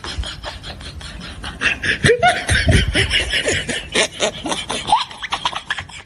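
Laughter: a run of short, quick bursts that starts about a second and a half in, is loudest for the next couple of seconds, and fades near the end.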